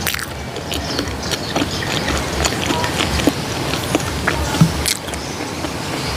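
Close-miked mouth sounds of eating soft Montong durian flesh: scattered wet clicks and smacks of chewing.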